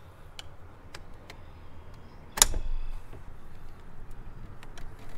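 Light clicks and scrapes of a flathead screwdriver working a small rubber PCV hose off its fitting on the intercooler, with one sharp snap about halfway through.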